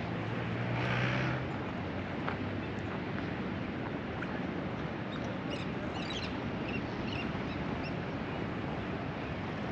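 Outdoor ambience with a steady hiss of traffic or wind. A vehicle's engine hum fades out in the first couple of seconds, and a few short bird calls come around the middle.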